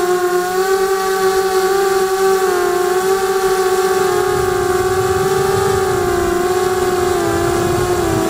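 QAV250 racing quadcopter's brushless motors and propellers whining steadily in flight, heard through its onboard camera, the pitch sagging and recovering slightly a couple of times with throttle changes. A rough, rumbling noise lies underneath.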